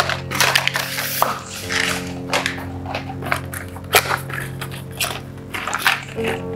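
Background music with sustained chords, over irregular rustling and sharp clicks from handling tattoo needle cartridge packaging.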